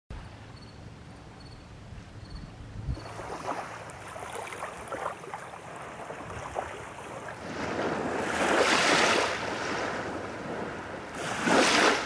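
Small waves lapping and washing onto a sandy shore, with two larger waves washing in about eight and eleven seconds in.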